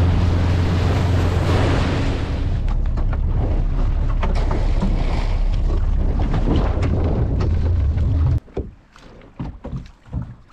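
Small motorboat's engine running steadily at speed, with wind on the microphone and water rushing past the hull. About eight seconds in it cuts off suddenly, leaving quieter wind and water with a few irregular knocks.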